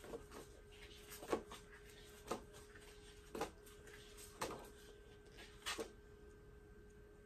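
12x12 paper pads being handled and set down one on another: about six short slaps and rustles of paper, roughly a second apart, stopping about six seconds in.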